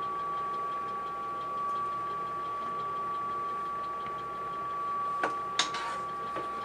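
Extraction fan of a smokeless electric table grill running with a steady whine. Two short clinks come about five seconds in.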